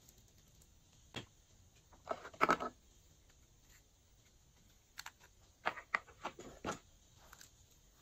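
Glossy slime being squished and mixed by hand, giving short bursts of sticky pops and crackles: a single one about a second in, a louder cluster around two and a half seconds, and another run of pops between about five and seven seconds.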